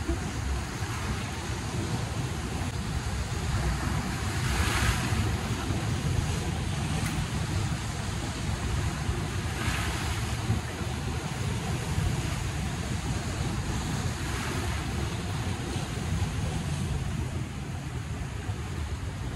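Ocean surf breaking and washing over shoreline rocks, swelling louder about five seconds in, again at about ten seconds, and once more near fourteen seconds.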